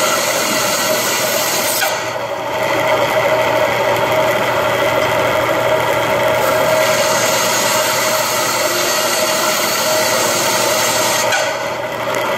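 Band saw running steadily and cutting through wood with a dense rasping hiss over a steady motor hum. The rasp eases briefly about two seconds in and again near the end.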